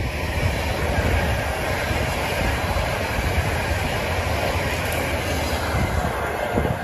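Passenger train passing on the line: a steady, loud rush of wheel-on-rail noise over a low rumble, building in over the first second and holding, then starting to ease at the very end.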